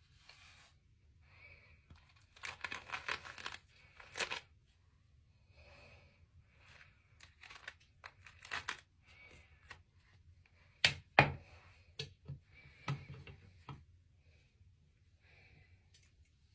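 Brush bristles dragged through straight hair in short rustling strokes, with a few sharp clicks and knocks about two-thirds of the way in.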